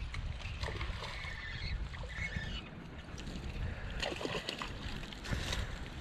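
Creek water sloshing and splashing, over a steady low rumble.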